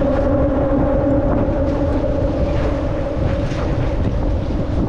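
Wind buffeting the microphone over choppy water, with a steady, unchanging hum underneath.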